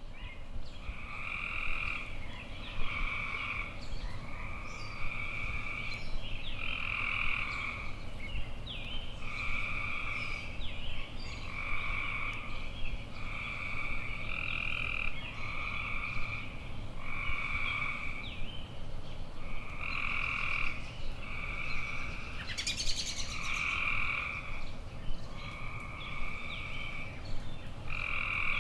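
A chorus of frogs calling in a steady rhythm, about one call every second, each call a two-pitched croak, with short higher chirps scattered over it.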